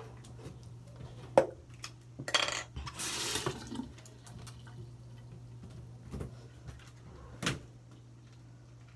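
Toiletries being handled at a bathroom sink before brushing teeth: a sharp click about a second and a half in, a short burst of running tap water about three seconds in, and two more small knocks later on. A steady low hum sits underneath.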